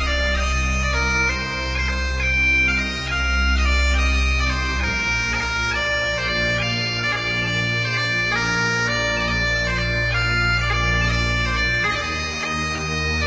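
Instrumental music: a reedy wind-instrument melody over held low drone notes. The low held note shifts about five seconds in and again near the end.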